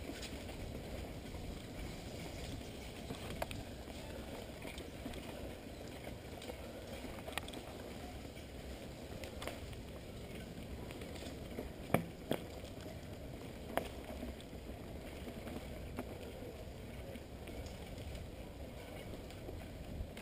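Mountain bike riding over a dirt trail: a steady rumbling rush of tyres and wind on the microphone. A few sharp knocks and rattles come as the bike jolts over bumps, the loudest a quick pair about midway through.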